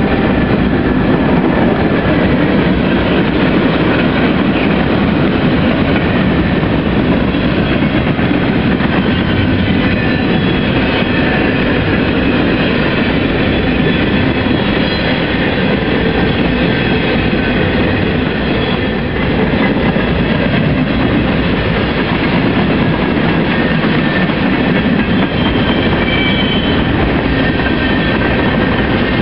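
Freight train cars rolling past close by: a steady, loud rumble and clatter of steel wheels on the rails, with a few brief, faint wheel squeals.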